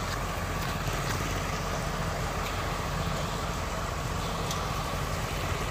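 Kubota DC-105X combine harvester's diesel engine running steadily at an even pitch as the machine travels on its rubber tracks.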